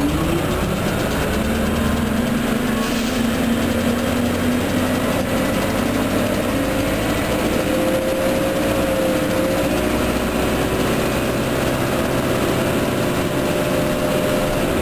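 Orion transit bus engine and drivetrain running under way, with a whine that climbs slowly in pitch, then drops suddenly near the end.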